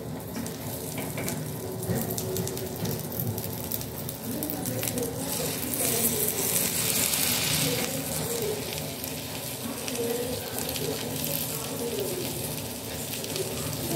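Butter sizzling and crackling on a hot tawa as stuffed dabeli buns fry in it, the sizzle loudest around the middle.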